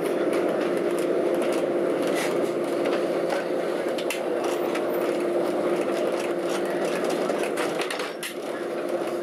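Vintage Lisbon electric tram running along its rails, heard from inside the car: a steady hum with the wooden body rattling and clicking throughout.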